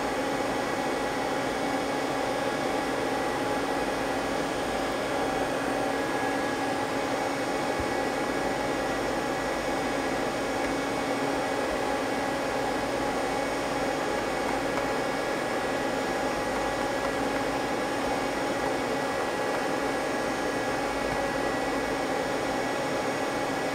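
Steady fan hum and hiss with a few constant tones over it, such as cooling fans or shop ventilation make, with no separate events.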